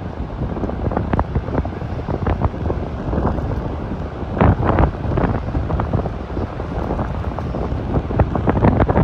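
Strong wind buffeting the microphone in uneven gusts, a heavy low rumble that swells sharply about four and a half seconds in and again near the end.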